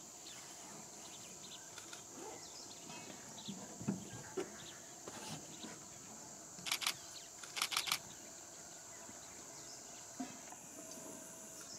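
Steady high-pitched drone of insects, with two short bursts of rapid camera shutter clicks, each about eight clicks, about seven and eight seconds in.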